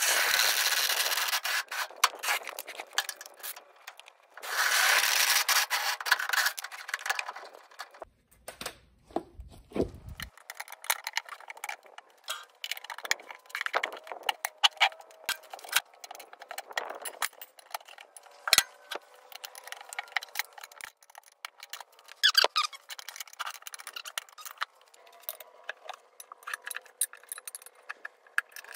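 A cordless drill driver runs in two bursts of a couple of seconds each, turning a bottle jack's screw to press down on a zero-turn mower tire and break its bead. From about ten seconds on come scattered scrapes, clicks and rubbing as steel tire spoons pry the tire off its rim.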